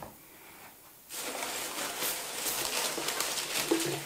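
Rustling of box packaging as a hand rummages through it for the next product, starting about a second in.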